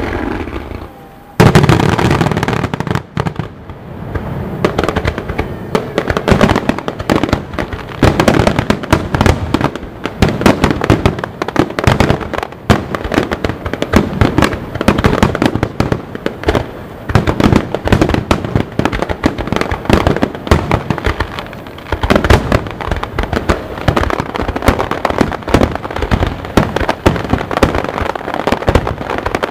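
A rapid barrage of aerial fireworks, shell after shell bursting in quick, overlapping bangs, beginning with a loud burst about a second and a half in.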